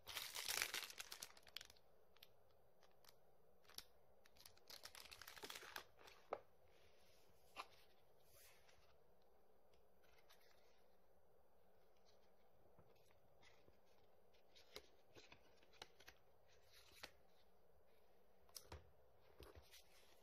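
Plastic wrapping crinkling and rustling as souvenir goods are handled, in a burst over the first couple of seconds and another about four to six seconds in. After that come scattered light taps and clicks over faint room hiss.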